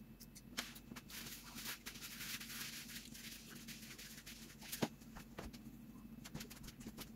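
Hands being rubbed together, a soft dry rustle lasting a few seconds, followed by a few light clicks and taps.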